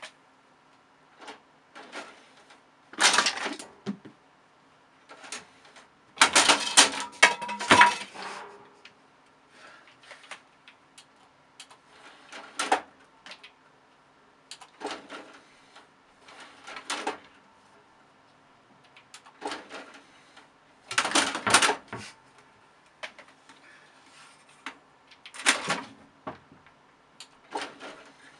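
Intermittent knocks, clicks and short rattling clatters, loudest about three seconds in, from six to eight seconds in and around twenty-one seconds in, over a faint steady hum.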